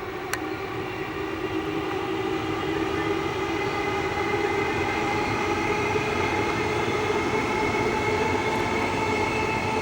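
Queensland Rail tilt train coming by. Its running noise carries a steady hum and grows louder over the first few seconds, then holds.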